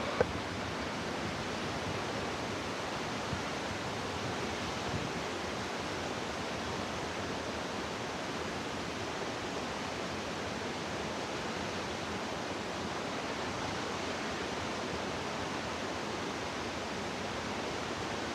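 Large waterfall pouring with high water volume: a steady, unbroken rush of falling water.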